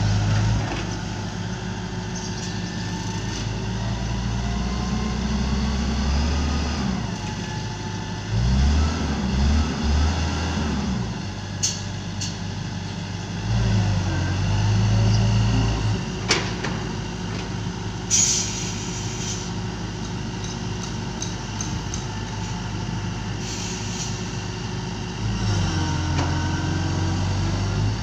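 Hitachi EX90 wheel excavator's diesel engine running, its pitch dipping and rising several times as the boom and arm are worked. There are a few sharp clicks and a brief hiss about two-thirds of the way through.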